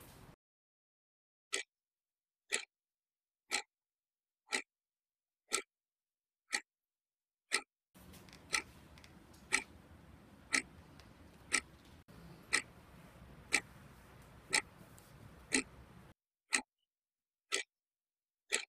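Wall clock ticking steadily, once a second, with dead silence between the ticks. A faint room hiss sits behind the ticks for a stretch in the middle.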